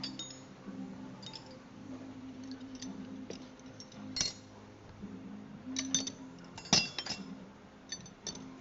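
Metal parts and tools clinking and tapping against each other, about eight sharp light knocks with a short ring, scattered unevenly. The loudest come in a cluster about two-thirds of the way in.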